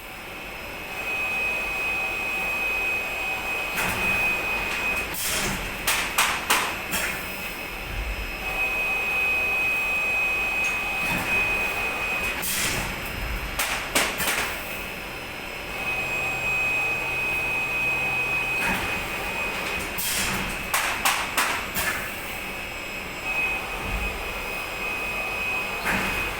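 Semi-automatic clamshell screen printing machine running through repeated print cycles: a high steady whine that stops and restarts, and a cluster of sharp clacks about every eight seconds as the mechanism moves.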